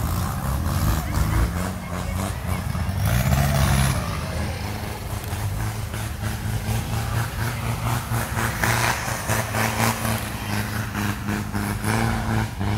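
Off-road 4x4 vehicle's engine running steadily under way, with frequent short knocks and rattles over it.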